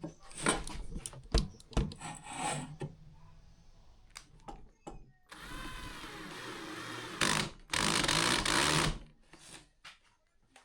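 A few knocks and clatter, then a small handheld power tool runs in short bursts from about halfway in. The tool starts with a steady motor whine, then makes two louder, harsher stretches of about a third of a second and a second as it works the wood.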